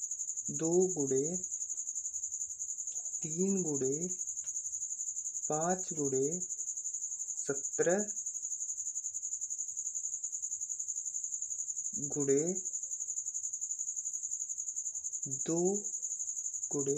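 A steady high-pitched trill, like a cricket's, pulsing rapidly without a break. About seven short, low bits of voice, mumbled or distant, cut in over it.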